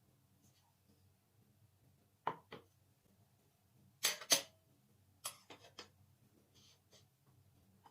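A scattering of light taps and clinks as things are handled and set down, about eight in all, loudest as a quick pair about four seconds in.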